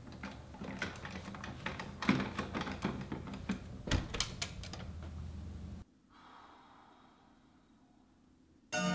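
A run of quick, irregular clicks and rustles from close-up handling. They cut off abruptly about six seconds in, leaving faint room tone.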